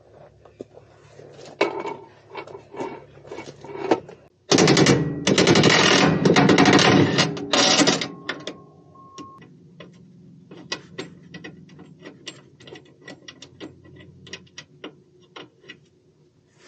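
Cordless impact driver hammering at the bolts of a motorhome's rear air-bag bracket to take them out: one loud run of rapid impacts about four and a half seconds in, lasting some three and a half seconds, then a brief steady whine. Scattered light clicks and knocks of tool and metal come before and after it.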